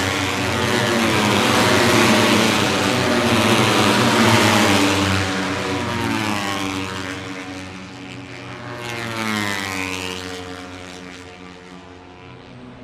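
Moto3 racing motorcycles with 250 cc single-cylinder four-stroke engines passing at speed, their high-revving exhaust notes dropping in pitch as they go by. The sound is loudest in the first few seconds, fades, swells again with another pass midway, then fades out near the end.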